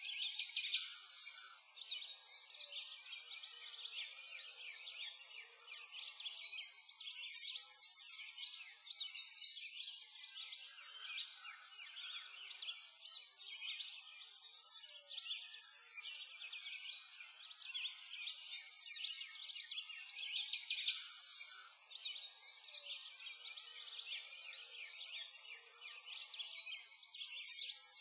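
A dense chorus of small birds chirping and singing at once, high-pitched and continuous, with nothing lower beneath it.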